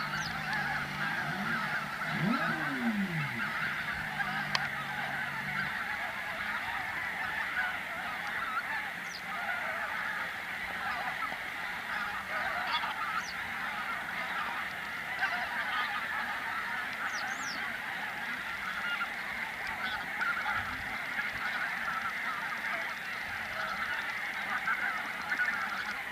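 A large flock of wild geese on a lake honking and calling continuously, a dense, steady chorus of many overlapping voices.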